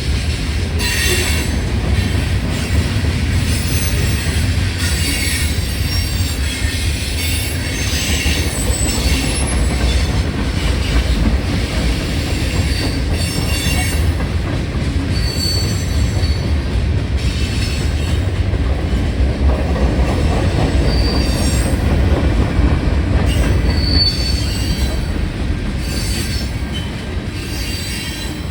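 A train passing over the grade crossing: a steady low rumble of wheels on the rails, with intermittent high-pitched sounds above it.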